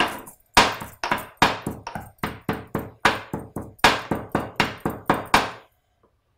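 Cardamom pods pounded in a small white mortar with a pestle: quick, even strikes, about three or four a second, that stop about five and a half seconds in.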